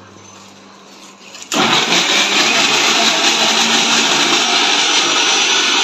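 Electric kitchen mixer grinder switching on about a second and a half in and running steadily, grinding ginger, garlic and green chillies into a paste.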